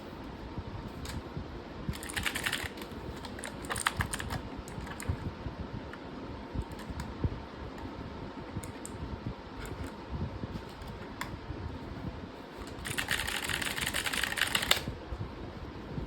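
Typing on a Razer BlackWidow V3 TKL mechanical keyboard with yellow switches. There are short bursts of keystrokes, scattered single key presses, then a fast run of rapid typing near the end.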